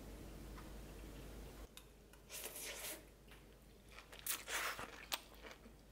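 Close-up eating sounds: soft chewing and biting of pasta in short bursts, starting about two seconds in, with a sharp click near the end.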